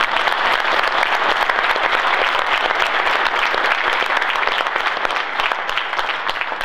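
Audience applauding: many hands clapping at once, easing off slightly near the end.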